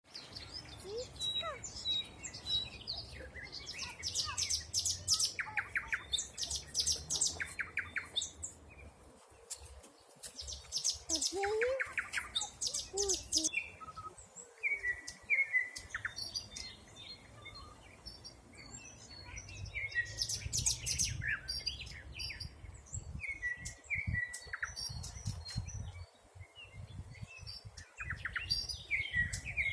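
Several songbirds singing together in a spring forest. Their songs overlap: rapid high trills and short whistled and slurred notes repeating throughout, over a low background rumble.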